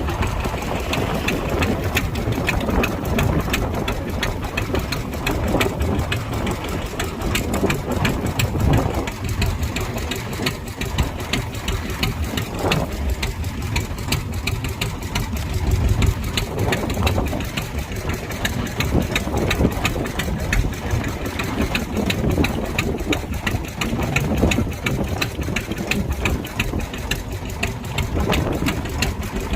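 A fishing boat's engine running steadily with a rapid, even chugging.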